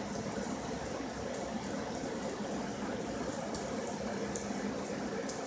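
Rain falling steadily in a thunderstorm: an even hiss, with scattered ticks of drops striking close by.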